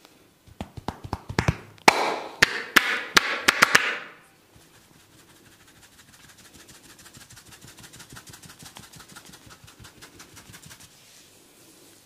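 Hair cracking in a barber's head massage: tufts of hair gripped at the roots and worked, giving a run of sharp snaps and crackles for about three and a half seconds. Then a much fainter, fast, even patter of the hands on the hair and scalp.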